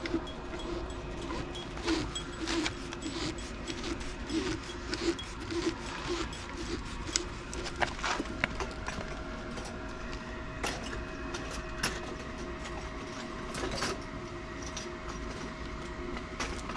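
Scattered clicks and knocks of hand tools being handled and set down, over a steady hum.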